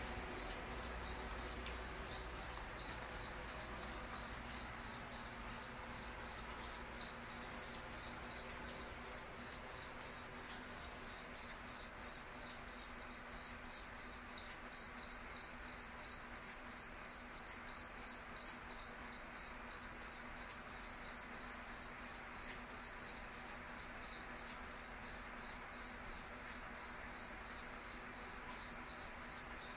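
A cricket chirping steadily: one high-pitched chirp repeated evenly, about three times a second.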